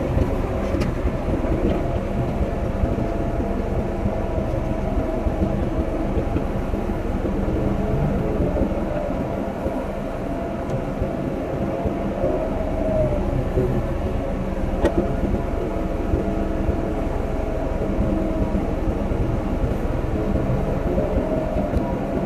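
Excavator's diesel engine running steadily, with a whine that swells and fades about three times and a single sharp knock about two thirds of the way through.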